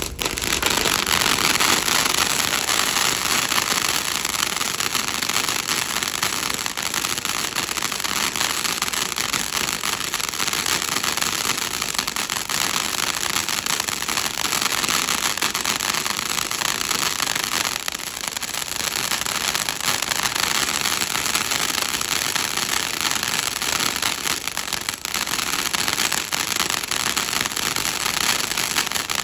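TNT Wild Side ground fountain firework burning: a steady, loud hiss of spark jets laced with dense crackling. It starts abruptly and eases briefly a little past the middle.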